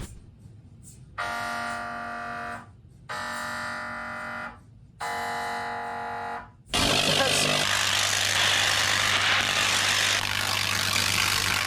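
A warning alarm sounds three times in long, even tones. Then a loud, continuous buzzing crackle sets in with a low hum underneath: the high-voltage discharge of an artificial lightning generator striking a car.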